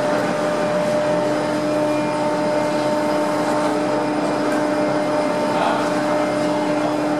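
Boathouse slipway winch hauling a Tamar-class lifeboat up into the boathouse: a steady mechanical hum with a constant whine.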